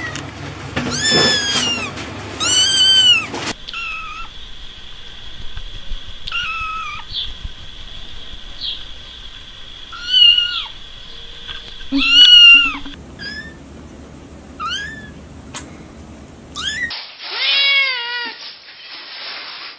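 Kittens meowing: a string of short, high-pitched mews, each rising and falling in pitch, one clip after another. Near the end a cat gives a longer, lower meow.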